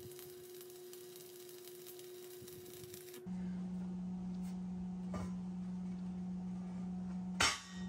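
Faint crackle of a 6013 stick-welding arc on thick steel for about three seconds, then a steady low hum, with a short clatter near the end.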